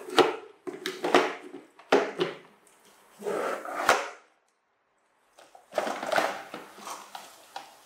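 Plastic toy dump truck knocking and scraping on a wooden floor as a young monkey climbs on and pushes it: several sharp knocks and rattling scrapes, cut by about a second of dead silence midway.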